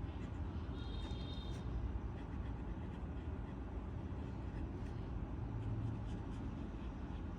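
Soft, irregular scratching of a coloring tool on paper as a drawing is colored in, over a steady low rumble.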